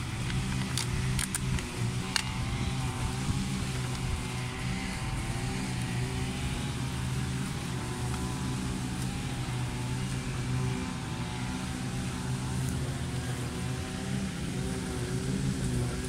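Motorized brush cutters running steadily in the background, their engine note wavering slightly up and down. A few light clicks come about one to two seconds in.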